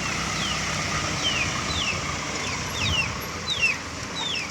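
Steady traffic and engine noise by the road, with short high falling chirps repeating about twice a second.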